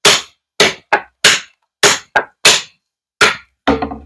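A large fixed-blade chopping knife striking a pine dowel on a wooden stump in about nine quick, sharp chops, roughly two a second. The last, heavier-sounding chop breaks the dowel through.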